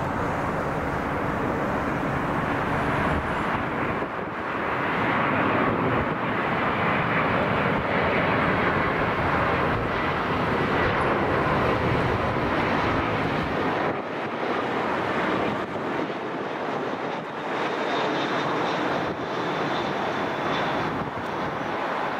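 Jet airliner passing close on its landing approach: the engine noise swells to a peak for several seconds, then eases off, with a thin high whine near the end.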